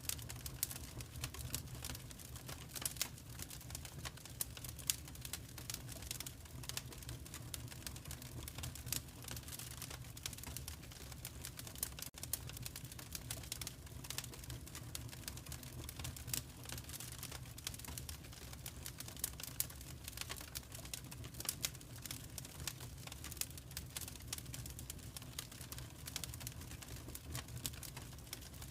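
Wood fire crackling in a fireplace: dense, irregular snaps and pops over a low, steady rumble.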